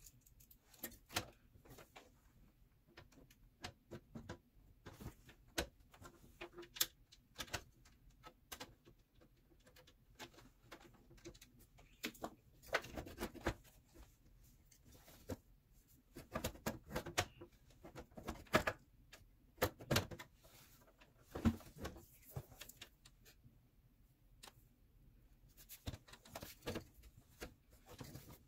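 Irregular small clicks, taps and rustles of hands tucking cables and handling parts inside a desktop PC case, with busier spells of handling partway through.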